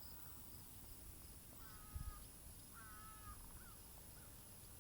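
Near-quiet outdoor background with a distant bird calling faintly twice, and a soft low thump about two seconds in.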